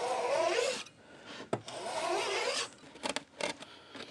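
Veneer saw cutting two-ply walnut veneer in two short scraping strokes. A few light clicks follow near the end.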